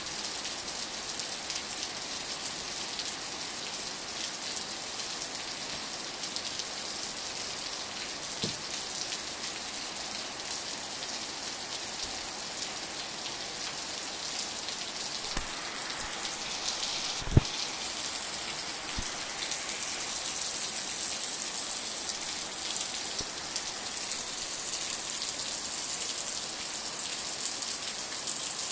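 Steady rain falling, an even hiss, with a few dull knocks, the loudest about two-thirds of the way through.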